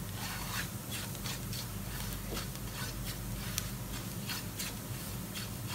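A spatula scraping and stirring sautéed chopped onions around a granite-coated nonstick frying pan, in short irregular strokes about two or three a second.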